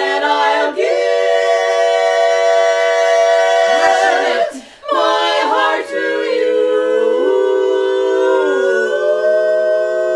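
Four women singing a ballad a cappella in four-part harmony, holding long chords. There is a short break for breath about four and a half seconds in, and later some voices glide to new notes while others hold.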